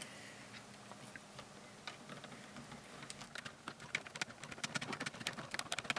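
Hard 3D-printed plastic suspension parts clicking and knocking together as they are handled and fitted by hand. A few scattered clicks at first, then from about halfway a rapid run of small clicks that grows louder.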